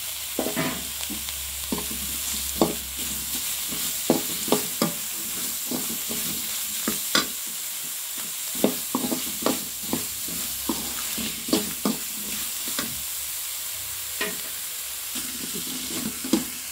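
Bitter gourd pieces frying with onion, garlic and spices in a metal kadai, with a steady sizzle. A slotted metal spoon stirs them, scraping and clinking against the pan at an uneven pace.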